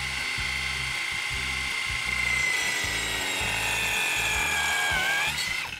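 A cordless drill drives a CutSander speed-up gearbox that spins a toothed multi-purpose cutting blade through a wooden board, with a steady high whine. The pitch sags a little while the blade is in the wood, climbs back near the end, then winds down as the tool stops.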